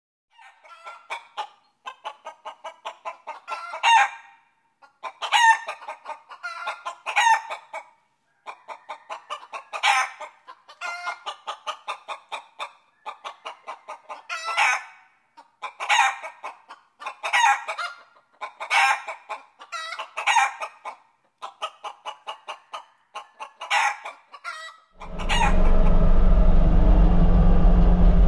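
A chicken clucking and cackling, over and over: each run of quick clucks builds to a louder drawn-out call. Near the end the steady drone of the Cat 259 compact track loader's diesel engine cuts in abruptly and is louder than the clucking.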